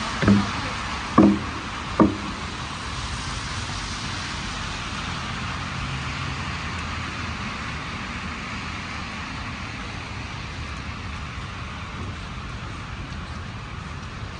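Steady hiss of city traffic on a snowy street, with three dull thumps in the first two seconds.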